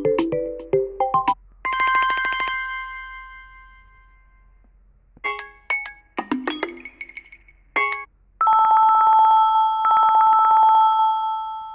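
Samsung Galaxy A20s preset tones played one after another: the end of a quick electronic melody, a bell-like chime that rings out and fades, a few short blips, then a held buzzing tone that fades away near the end.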